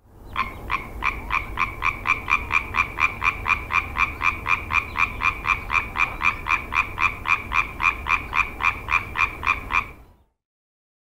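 Tree frog calling: a fast, even series of short croaks, about three a second, that stops about a second before the end.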